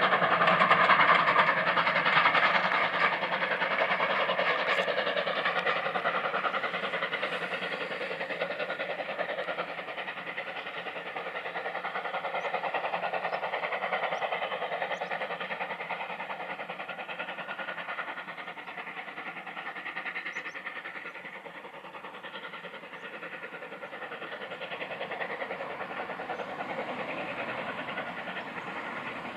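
Steam locomotive hauling a train of coaches, its running and the coaches on the rails a steady noise that gradually fades as the train moves away.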